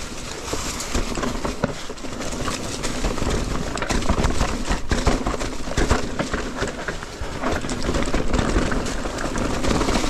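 Mountain bike riding fast over rough trail: a steady rush of tyre and riding noise with the bike rattling over bumps in many small clicks and knocks.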